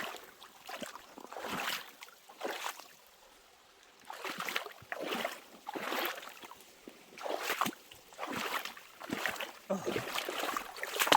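Footsteps wading through a shallow rocky creek, the water sloshing and splashing with each step in an uneven rhythm, with a brief pause a few seconds in.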